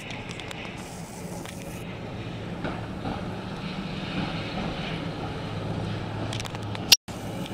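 Street ambience with a steady low hum and rumble of traffic and a tram running some way off. Near the end there is one sharp click and then a brief moment of complete dropout, an edit or splice in the recording.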